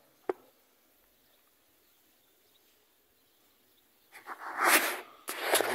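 A pig's noisy breaths close to the microphone, twice near the end and loud. Before that there is a single click about a third of a second in, and otherwise only faint background.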